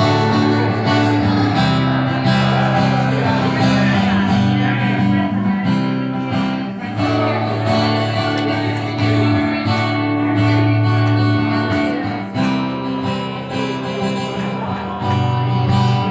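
Acoustic guitar strummed in a steady chord pattern, the instrumental intro of a country song before the vocals come in.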